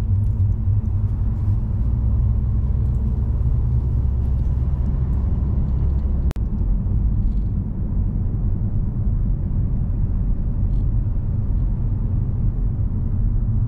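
Steady low rumble of a car driving along a city street, road and engine noise, with a split-second break about six seconds in.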